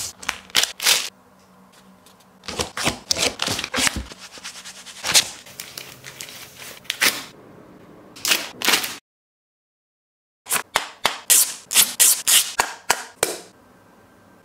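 Coin packaging being handled and opened: a run of sharp clicks, snaps and crackles in several clusters, breaking off into total silence for over a second about nine seconds in before the clicking resumes.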